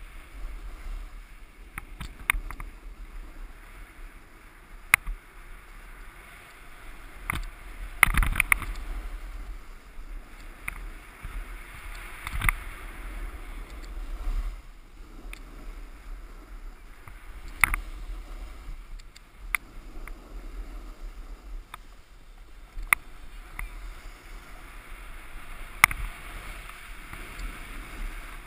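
Snowboard sliding and carving down groomed, hard-packed snow: a continuous scraping hiss that swells and fades with the turns. Sharp clicks and knocks are scattered through it, the loudest about eight seconds in.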